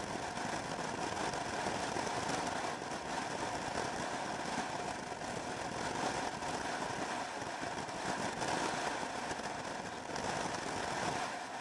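Scooter riding at a steady cruising speed: wind rushing over the microphone along with engine and road noise, with no change in pace.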